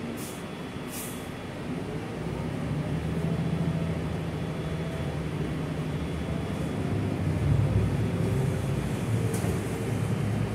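Gillig low-floor city bus heard from inside the cabin while under way: the engine and drivetrain hum low and grow louder about two seconds in as the bus picks up speed, over steady road noise. Two short hisses come near the start.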